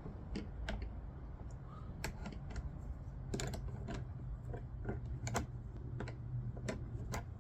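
Irregular light metal clicks and taps of an open-ended wrench being fitted onto and worked around a small 8 mm bolt of a fuel petcock, over a steady low hum.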